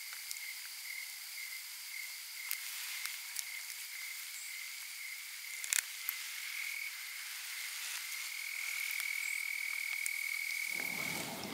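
A steady, high-pitched pulsing trill from a chorus of small calling animals, such as frogs or insects, which turns smoother and a little louder about eight seconds in. A few faint clicks come about halfway, and a low rustle starts near the end.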